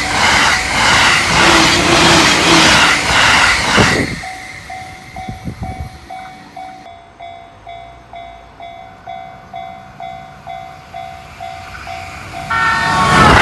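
A Joban Line train rushes past at high speed, its wheels clattering in a quick, even rhythm; the sound cuts off abruptly after about four seconds. Then a Japanese level-crossing alarm bell dings about twice a second. Near the end a train horn sounds as the next train arrives with a loud rush.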